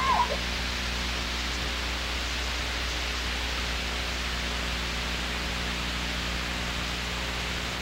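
Steady electronic hiss with a low mains hum: the noise floor of an old camcorder recording over a black picture.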